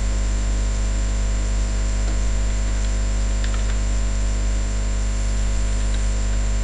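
Steady electrical mains hum with an even hiss of static, unchanging throughout.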